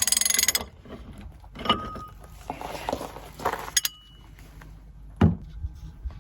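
Steel hand tools and wheel-hub parts being worked and handled: a fast run of clicks at the start, then several metal clinks that ring briefly, and a dull thump about five seconds in.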